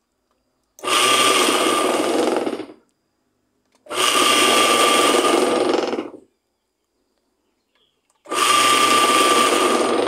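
Repaired single-phase washing-machine motor, its melted lead wire resoldered and its capacitor fitted, switched on three times in runs of about two seconds. Each time it comes up to speed at once with a steady hum and whine, then cuts off quickly. It now starts and runs strongly.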